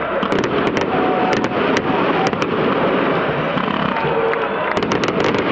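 A stadium crowd of football fans chanting and cheering, with firecrackers and fireworks going off through it in scattered sharp pops. The bangs come thickest near the end.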